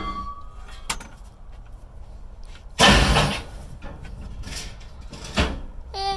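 Scrap metal being pulled and handled: a short knock, then a loud clattering bang about three seconds in, followed by two smaller bangs.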